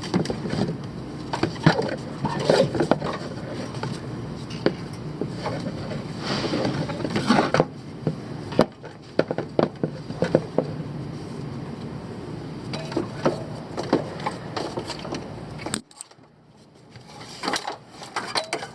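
Many irregular clinks and knocks, like tools and parts handled on metal, over a steady low hum; the sound drops away abruptly about three quarters of the way through, then the clinking resumes.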